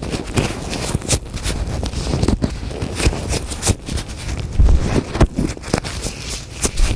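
Latex gloves rubbed, stretched and crinkled by hand, making many quick, irregular crackles and squeaks with a low rumble of handling underneath.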